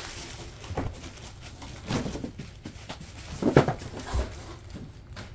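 Handling noises: a few knocks and thumps, the loudest about three and a half seconds in, as the heavy smoke purifier unit is lifted out of its box and set down on a table.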